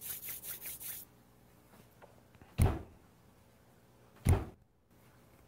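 Palms rubbed briskly together to warm them, a rhythmic swishing of about five strokes a second that stops about a second in. Then two short dull thumps, about a second and a half apart.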